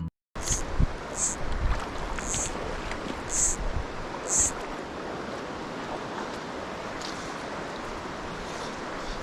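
River water rushing steadily, with five short high-pitched sounds about a second apart in the first half.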